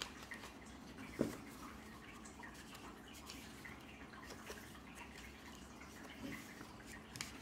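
Pages of a small paper booklet being turned by hand: faint paper rustles and light ticks, with one louder soft thump about a second in.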